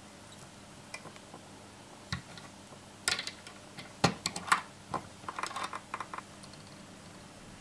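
Small clicks and taps of fingers and tools handling the hook, thread and flash strands at a fly-tying vise. A few faint ticks and one sharp tap come first, then a quick irregular run of clicks in the middle.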